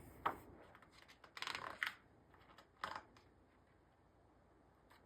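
A picture book's pages being handled and turned: a short tap near the start, a longer papery rustle about one and a half seconds in, and another brief rustle near three seconds.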